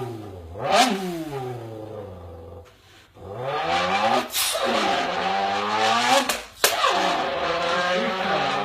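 A person vocally imitating a Ford Mustang engine: a quick rev up and down, then long revving pulls that rise and fall in pitch like gear changes, broken by short pauses about three and six seconds in.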